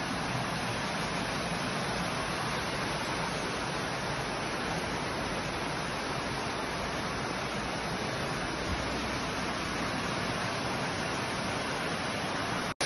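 Waterfall rushing in a steady, even noise, broken by a split-second dropout near the end.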